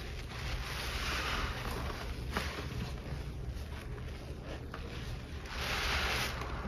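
A cleaner-soaked sponge squeezed and kneaded by gloved hands in foamy soap and scouring-powder paste: wet squelching and crackling suds that swell about a second in and again near the end, with one sharp click in between.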